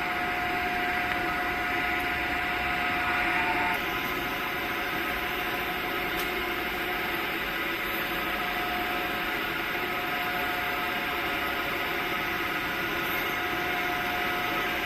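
Steady hum and hiss of factory machinery, with a few faint steady tones running through it, slightly louder for the first few seconds.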